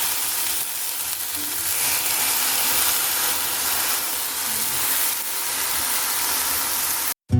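Broccoli, onion and garlic sizzling in melted butter in a frying pan, a steady frying hiss that cuts off suddenly near the end.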